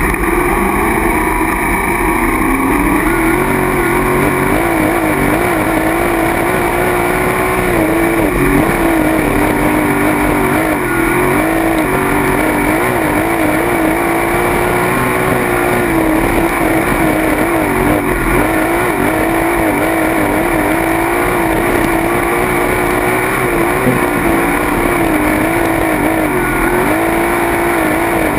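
Sprint car's V8 engine at speed, heard from the onboard camera. It climbs in revs over the first few seconds, then runs loud and nearly steady, with the revs dipping and rising again over and over around the track.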